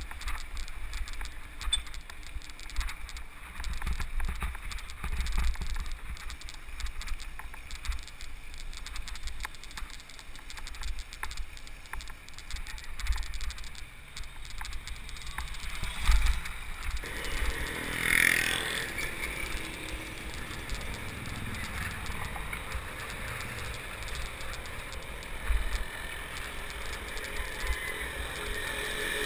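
Wind buffeting the microphone of a camera on a moving bicycle, with a rumble that surges and fades and small knocks and rattles from the ride. From about 17 seconds in, louder road and traffic noise joins, with a brief higher-pitched sound near 18 seconds.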